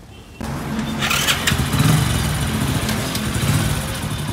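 Hero Splendor motorcycle's small single-cylinder engine running. It comes in suddenly about half a second in and rises briefly in level about two seconds in.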